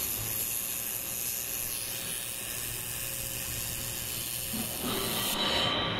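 Handheld 1 kW fiber laser welder welding 3 mm carbon steel: a steady hiss while the beam is on, which cuts off about five and a half seconds in.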